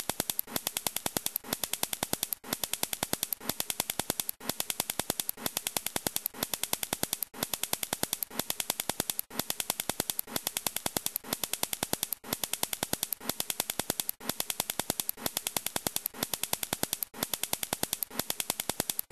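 Toy cap gun firing caps in rapid succession: a fast run of sharp snaps, broken by a brief pause about once a second, over and over.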